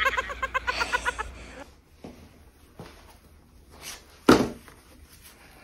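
A person's voice pulsing rapidly for the first second and a half, then quiet with a few faint ticks and one sharp knock a little after four seconds in, as a snow shovel's blade comes down on the driveway.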